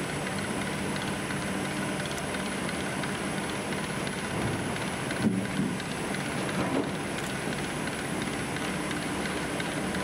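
Sennebogen 735 E timber handler running steadily as it swings a load of logs, with a couple of short knocks about halfway through.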